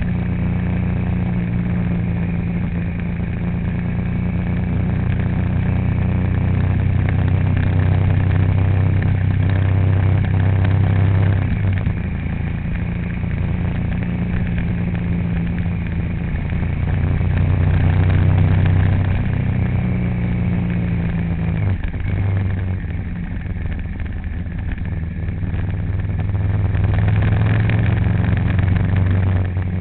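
A vehicle's engine running steadily while driving, with road and wind noise underneath. The engine's pitch shifts down about a third of the way in and again after about two thirds, as with gear changes or easing off.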